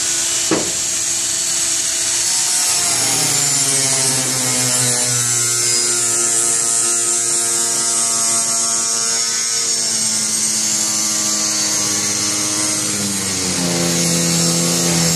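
Corded angle grinder cutting through a stone countertop shelf, its motor whine sagging as the disc is pushed into the cut and picking back up near the end, over a steady gritty hiss. A short sharp snap about half a second in.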